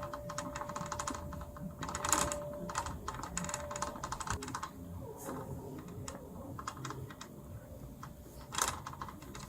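Irregular light clicks and taps, some in quick clusters, like small hard objects being handled.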